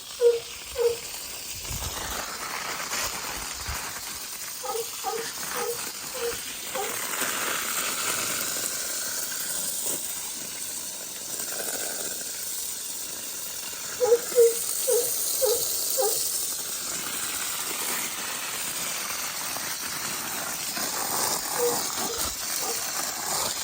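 A dog barking in four runs of a few sharp barks each, spread across the stretch, over a steady hiss.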